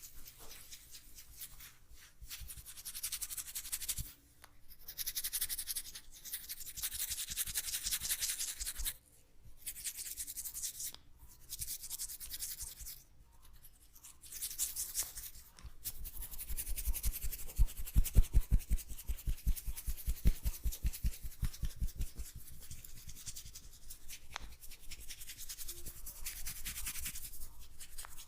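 Hands rubbing and working oiled hair and scalp in a head massage: fast, hissy, crackling friction in bouts broken by short pauses. Past the middle comes a several-second run of low rhythmic thumps, about three to four a second.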